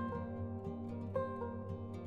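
Background music: a plucked-string instrumental, new notes picked every half second or so over a steady bass.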